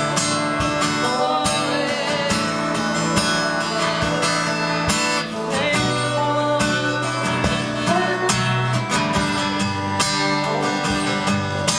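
Live worship band playing an instrumental passage: strummed guitar over sustained chords and bass notes that change every few seconds.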